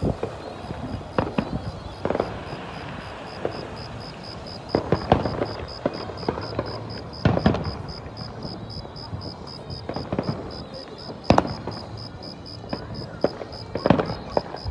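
Aerial firework shells bursting overhead: about a dozen sharp bangs and cracks at irregular intervals, some in quick pairs, over a low background rumble.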